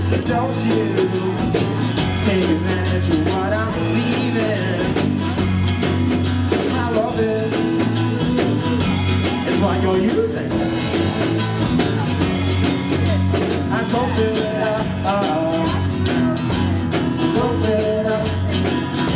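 A live band plays a blues-rock song: an acoustic guitar is strummed over an electric bass and a drum kit, with a man singing.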